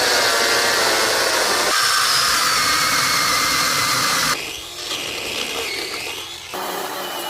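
Cordless battery-powered chainsaw running and cutting wood, its motor whine dipping and rising under load. The sound changes abruptly three times, about two, four and six and a half seconds in, and is quieter after the second change.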